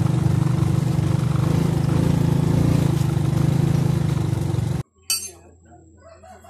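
Small motorcycle engine running steadily as the bike is walked up a dirt trail. It cuts off abruptly near the end, followed by a single sharp metallic clink.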